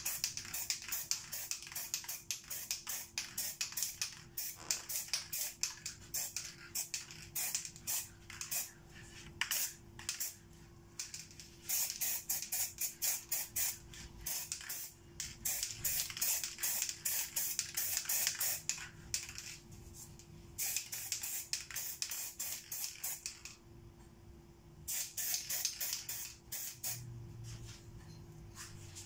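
Aerosol spray-paint can hissing in many short, quick bursts with brief pauses between them, as paint is sprayed over a metal stencil.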